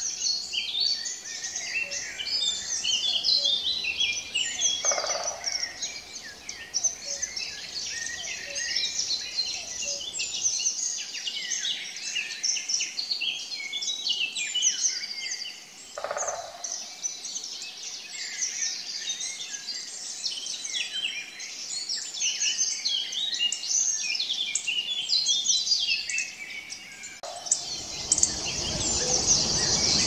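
Dense chorus of small songbirds chirping and singing, many birds overlapping. The background changes abruptly a few times, and a low rumble joins near the end.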